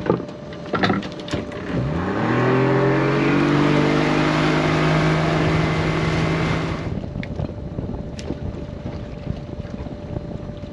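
Evinrude outboard motor throttling up, its pitch rising and then holding steady over the rush of water from the wake, after a few light knocks. The engine sound cuts off suddenly about seven seconds in, leaving a lower steady rumble.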